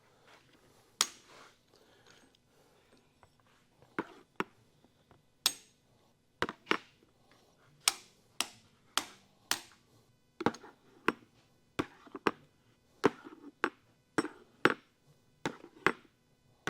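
Sharp metal clicks and knocks of hand tools and engine parts being handled during an engine teardown: about twenty separate strikes at an irregular pace, coming faster in the second half.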